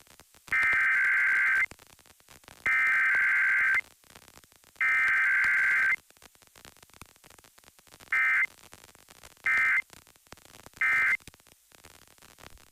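Emergency Alert System SAME data header: three loud bursts of warbling digital tones, each about a second long and about a second apart, received for a Required Weekly Test. These are followed a little later by three short end-of-message bursts, with a faint hiss between them.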